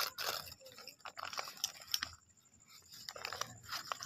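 Paper food wrapper rustling and crinkling as it is pulled open from around a burger, in short bursts. There is a brief lull in the middle, then more crinkling near the end.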